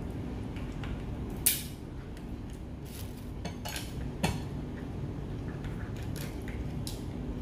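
Steamed mud crab shell being cracked and picked apart with a metal cracker, with scattered clicks and clinks of metal on shell and plates over a low steady hum. Two sharper cracks stand out, about one and a half and four seconds in.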